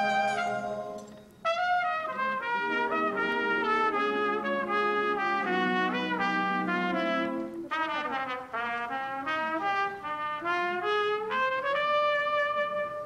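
Trumpet playing a solo melody in sustained notes over a symphony orchestra's accompaniment. The music breaks off briefly about a second in, then carries on.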